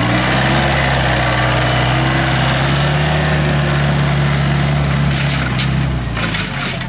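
Lamborghini Runner 250 compact tractor engine running hard at full throttle as the tractor drives across grass, a steady engine note that fades near the end as it pulls away.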